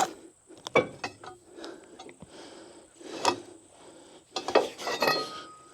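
Homemade cant hook knocking and scraping against a log and the sawmill's steel frame as the log is rolled by hand. There are scattered knocks with rubbing between them, then a cluster of clanks near the end, one ringing like struck metal.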